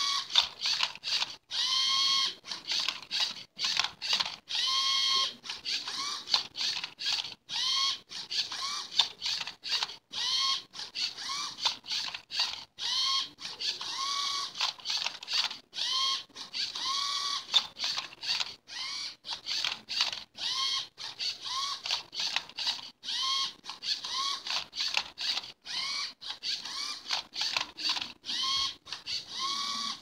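LEGO Mindstorms EV3 Rubik's-cube-solving robot at work: its servo motors whir in a long series of short moves, each a whine that rises and falls in pitch, with plastic clicks and clacks between moves as the arm tips and the turntable turns the cube.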